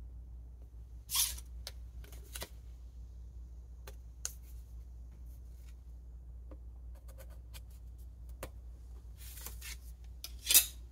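Brief crisp paper rustles, scrapes and peels as washi tape and stickers are handled and pressed onto a planner page. A few scattered strokes come first, then a denser cluster near the end with the loudest one, over a faint steady low hum.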